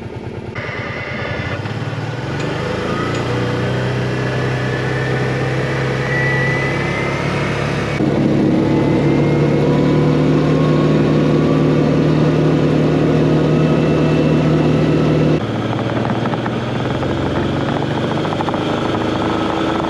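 Side-by-side UTV engine running steadily under way. It picks up over the first couple of seconds and is louder for a stretch in the middle.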